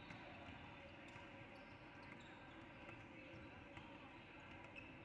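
Faint basketball game sounds in a gym: a ball bouncing on the court, with distant voices.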